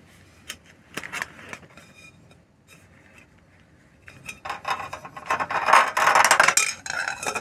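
Baked tart being pushed out of its fluted metal tart tin. A few light clicks, then from about four seconds in a stretch of rubbing and scraping as the pastry crust and tin slide apart.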